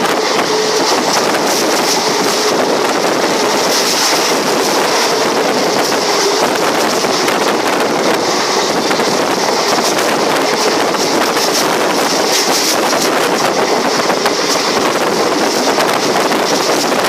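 Steady noise of a train running along the track, with wind buffeting the microphone.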